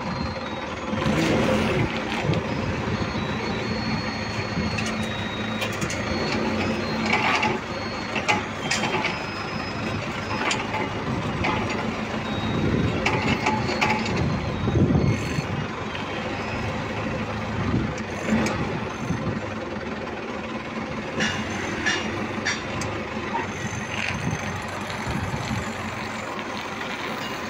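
Forklift engine running as it drives, with rattling and knocking from the mast and lift chains now and then, and short high beeps heard at times.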